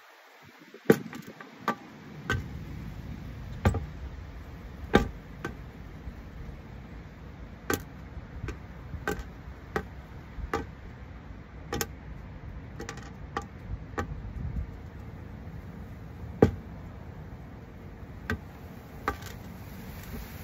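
Hooded crow pecking up food, its beak striking a hard surface in sharp, irregular taps about one a second.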